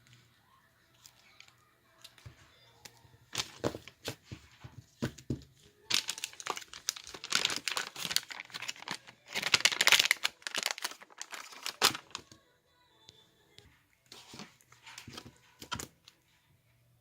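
Crinkling and crackling handling sounds, sparse clicks at first, then dense and loud for several seconds in the middle before thinning out again.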